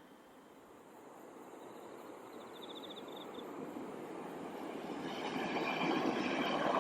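A train approaching on the rails, its running noise growing steadily louder.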